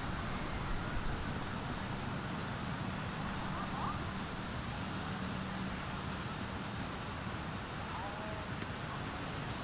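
Market crowd ambience: a steady low rumble of background noise with faint, scattered distant voices.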